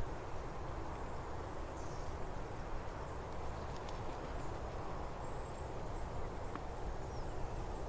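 Open-field outdoor ambience: a steady low rumble and hiss, with faint, brief high bird chirps now and then.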